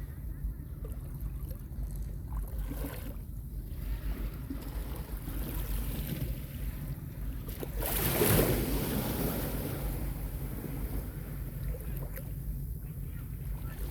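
Small sea waves washing onto a beach, with one louder wash swelling about eight seconds in and fading. A steady low wind rumble on the microphone runs underneath.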